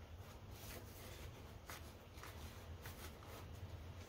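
Faint rustling and light taps of paper banknotes and a wallet being handled, a few soft handling sounds over a low steady background hum.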